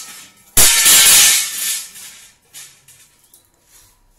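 A loud metallic crash and clatter about half a second in, ringing on for a second or so before dying away: pieces of a galvanized hollow steel frame knocking together as the frame is handled. A few faint knocks follow.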